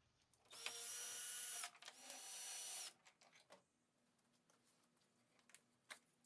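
A power drill running in two short spins of about a second each, with a steady motor whine, backing out the headlight's fasteners; a few faint clicks follow.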